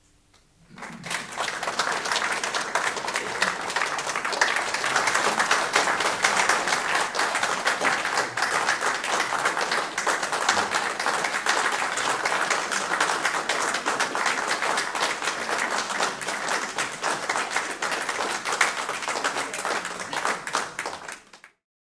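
Audience applauding, starting about a second in and cutting off suddenly near the end.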